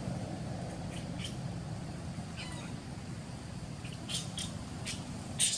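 A baby monkey crying: a string of short, high-pitched squeals, bunched toward the end, with the loudest near the end, over a steady low rumble.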